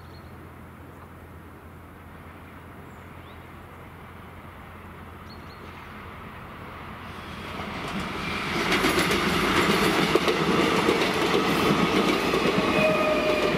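Passenger train approaching and running through the level crossing. It is faint at first, then grows from about seven seconds in to a loud rumble and clatter of coaches over the rails.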